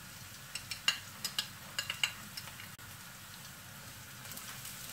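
Sliced onions sizzling in oil in a non-stick wok on a full flame as chopped ginger, garlic and green chillies are tipped in and stirred. About half a second in comes a run of sharp clicks and taps as the plate and spatula knock against the wok, over the steady frying hiss, which grows a little denser near the end.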